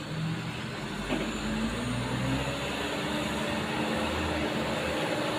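A loaded truck's diesel engine runs steadily, its drone creeping slightly up in pitch, over low road rumble. There is a short click about a second in.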